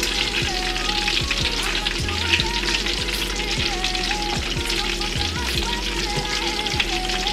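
Chunks of meat sizzling and crackling steadily as they brown in hot oil in a large aluminium pot, while more pieces are set in with tongs.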